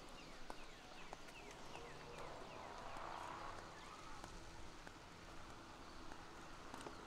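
Footsteps on a concrete sidewalk, with birds chirping in quick falling notes over a faint steady hum.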